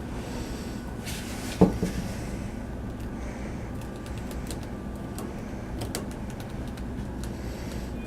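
Pet rats gnawing and handling a large sheet of matzah in their cage: faint crisp crunching and clicking throughout, with one loud sharp knock about one and a half seconds in and a couple of smaller knocks just after.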